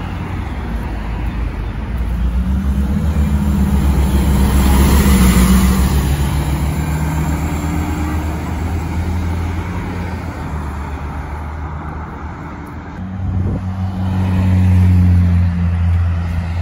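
Diesel city buses driving past with road traffic: a low engine note swells to its loudest about five seconds in, fades, and then swells again near the end as another bus approaches.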